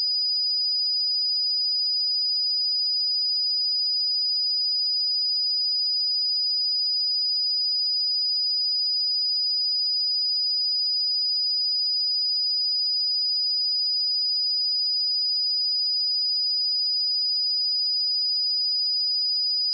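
Steady pure sine-wave test tone at 4943 Hz, a single high-pitched whistle-like note held at constant pitch and level.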